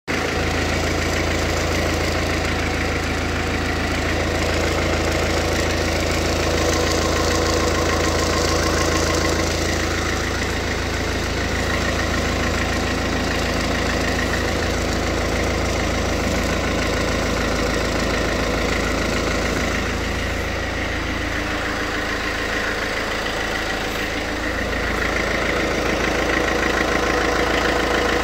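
Alfa Romeo Giulietta engine running steadily at idle from a cold start, with the cold-engine noise the owner is documenting.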